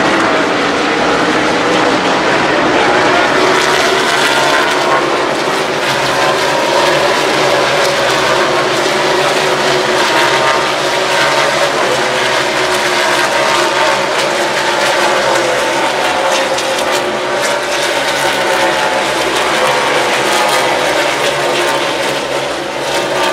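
NASCAR Cup Series stock cars' V8 engines running at racing speed past the grandstand. The engine notes rise and fall as cars go by, and the loud sound continues throughout.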